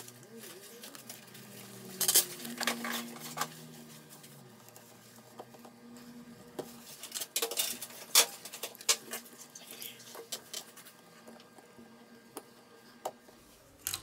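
Small metal repair tools clicking, tapping and scraping against a smartphone as it is worked on. The clicks come irregularly, busiest about two seconds in and again around the middle.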